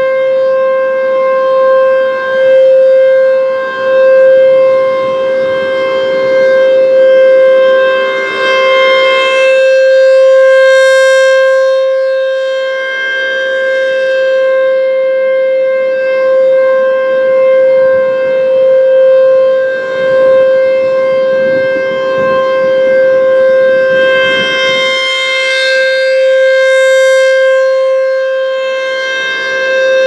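ASC T-135 rotating electronic-mechanical tornado siren sounding a steady, unwavering alert tone during a scheduled test. The sound swells and fades as the horn slowly turns, about one turn every 15 seconds, loudest twice as it faces the listener.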